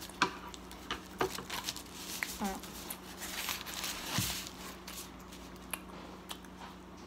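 Foil sandwich wrapper crinkling as it is handled, with scattered small clicks and close-up chewing sounds. A faint steady hum runs underneath.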